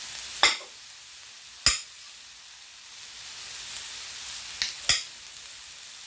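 Knife slicing radishes against a chopping board: four sharp knocks, two in the first couple of seconds and a quick pair near the end, over a steady hiss.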